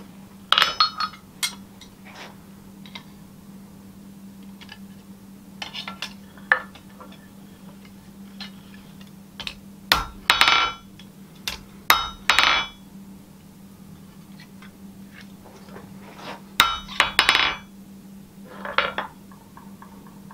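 Hand hammer striking a spring-steel knife on a steel anvil. The blows come in small groups every few seconds, each with a short metallic ring, over a steady low hum.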